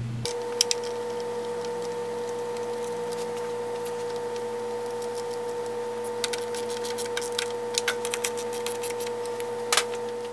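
Hand ratchet clicking in short quick runs as the fan shroud's two mounting bolts are tightened, over a steady background hum.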